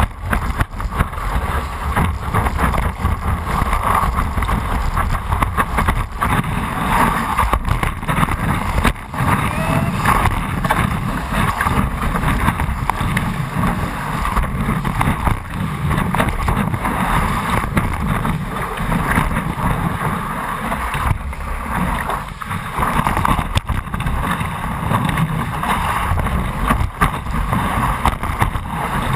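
Steady rush of wave water and wind over a stand-up paddleboard surfing a breaking wave, picked up by a camera mounted on the board, with low wind buffeting on the microphone.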